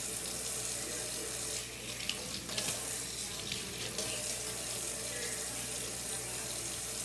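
Kitchen tap running steadily into a sink while raw cube steak is rinsed under the water, with a few brief handling sounds about two to four seconds in.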